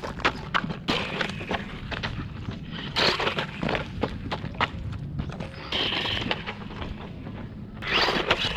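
Hosim Q903 1/16 brushless RC truck bashing over rock: a run of sharp clattering knocks as the chassis and wheels strike the rock, with short bursts of tyre scrabble between them.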